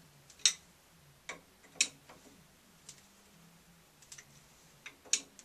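Several sharp, irregularly spaced clicks and taps of small hard parts being handled and fitted by hand at an opened-up shower valve. The loudest come about half a second in, just before two seconds, and near the end.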